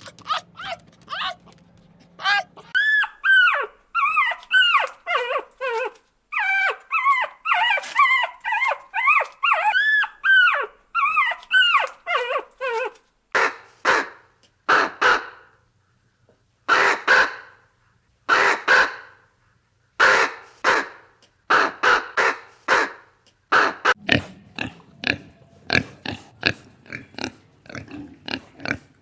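A run of animal calls. First comes a dense stretch of high whining calls that rise and fall in pitch. About halfway through they give way to harsh, noisy calls roughly once a second, then shorter, quicker calls near the end.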